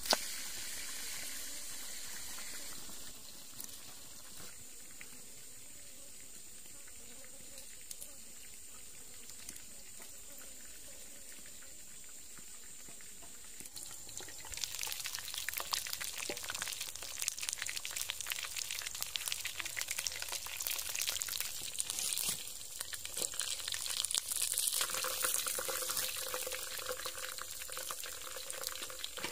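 Pork ribs frying in a lidded pan over a wood fire: a dense crackling sizzle sets in about halfway through and grows louder near the end, after a quieter stretch of steady hiss.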